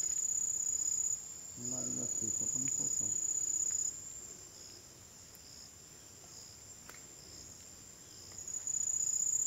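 An insect's steady high-pitched trill, which breaks off briefly after about a second, stops about four seconds in and starts again near the end.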